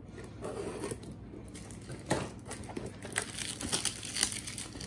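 Scissors cutting the plastic shrink-wrap on a cardboard toy box, with the wrap crinkling and the box being handled. There are a few sharp clicks, the clearest about two seconds in and about four seconds in.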